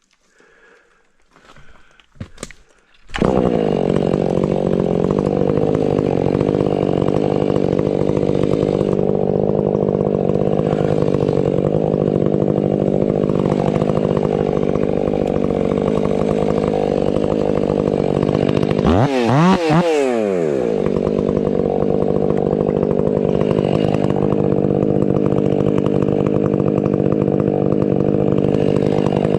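Stihl 500i fuel-injected two-stroke chainsaw cutting firewood at full throttle, coming in suddenly about three seconds in after a few faint clicks and holding a steady pitch under load. About two-thirds of the way through, the throttle drops and comes back, a quick fall and rise in pitch.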